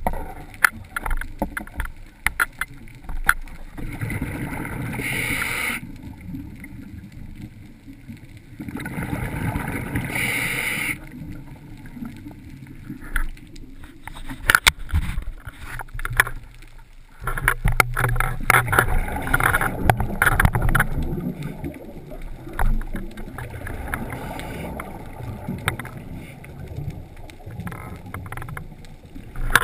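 Underwater sound of scuba breathing through a regulator: two or three bursts of exhaled bubbles a few seconds apart, over a low rumble of water noise and scattered sharp clicks.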